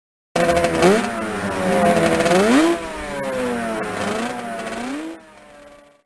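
Motorcycle engine revving in three blips, the pitch rising and falling with each one, then fading out near the end.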